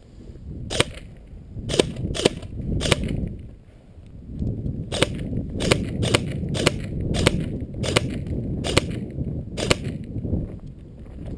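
Airsoft guns firing single shots: about a dozen sharp pops, four in the first three seconds and eight more spaced irregularly after a short lull, over a low rumble.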